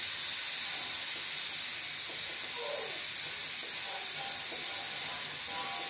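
Steady high hiss, the recording's own background noise, unchanged throughout.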